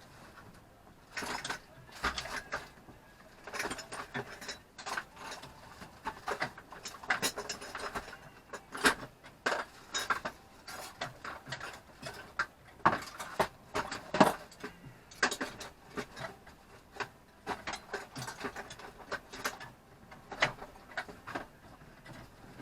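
Metal wrench and spanner clicking and knocking against a boat's inboard engine while the alternator bolt is worked on, in irregular short clanks.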